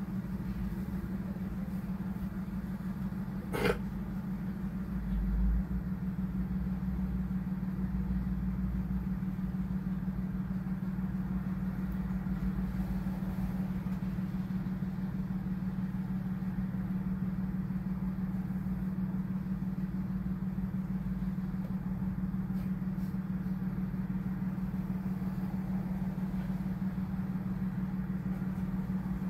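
A steady low hum of room or equipment noise, with a single sharp click about three and a half seconds in and a little more low rumble from about five seconds on.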